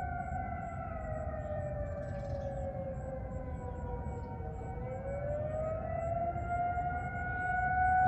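Several outdoor warning sirens sounding at once in a test of mixed Alert and Attack signals. One siren wails, its pitch sinking to a low point about halfway through and then rising again, while others hold steady tones. The sound grows louder near the end.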